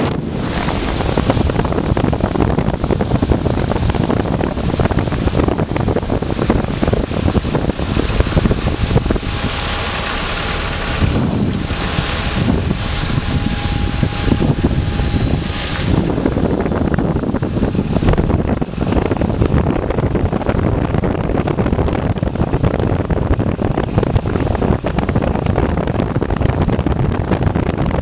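Car driving down a winding mountain road, with road and engine noise and wind rushing on the microphone. A faint high whine rides over it for a few seconds in the middle.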